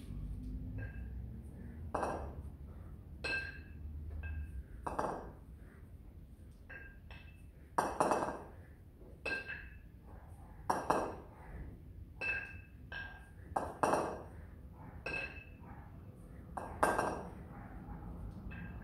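Pair of steel competition kettlebells held at the chest clinking and ringing against each other, with louder hits about every three seconds as he steps.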